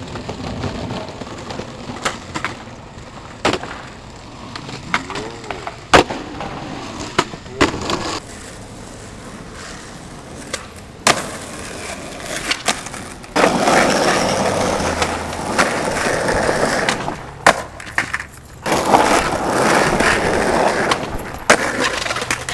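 Skateboard wheels rolling on concrete and asphalt, with several sharp clacks of the board popping and landing. The rolling is loudest in two long stretches in the second half.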